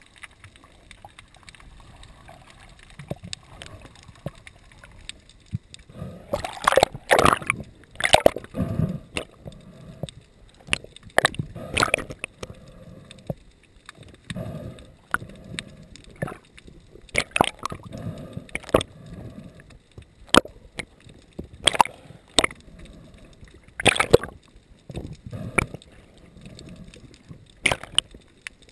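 Water sloshing and splashing in irregular surges, with sharp crackling strokes, fainter for the first few seconds.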